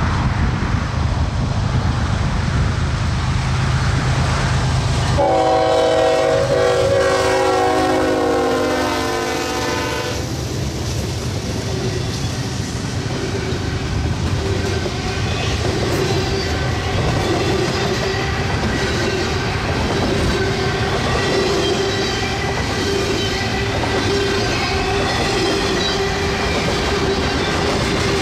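Diesel freight locomotive sounding its multi-tone air horn in one long blast of about five seconds, over the heavy rumble of passing trains. Then a double-stack intermodal train rolls past at speed, its wheels clicking over the rail joints, with a steady tone running under the noise.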